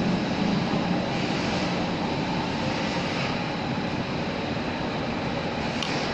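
Steady mechanical background rumble and hiss with no rise or fall, with a light click near the end.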